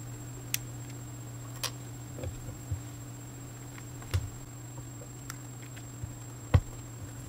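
Irregular small clicks and knocks as a plastic clock movement and a metal bicycle sprocket are handled and fitted together on a wooden table, with the loudest knock near the end. A steady low hum runs underneath.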